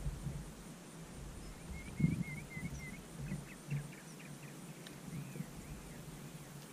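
A songbird singing: a run of about five short chirps, then a few quick sharp notes and two arched whistles. Two soft low knocks come about two seconds and about four seconds in.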